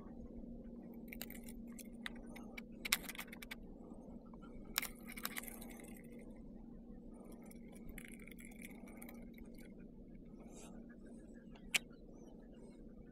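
Scattered faint metallic clicks and clinks of fishing tackle being handled, likely the baitcasting reel and lure, in small clusters over the first five seconds and once more near the end, over a faint steady low hum.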